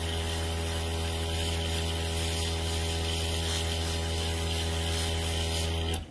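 Small airbrush compressor running with a steady hum, with the hiss of air through the airbrush as it sprays colour onto nail tips; it cuts off suddenly near the end.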